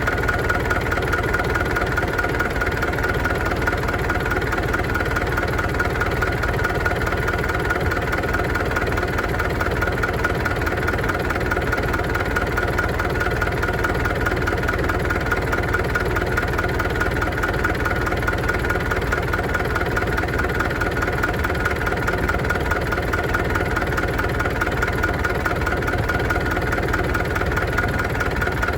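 UTB U650 tractor's diesel engine idling steadily at an even speed, with a steady whine over the running, after an oil change to Shell Rimula R4 X 15W-40 with a MoS2 additive.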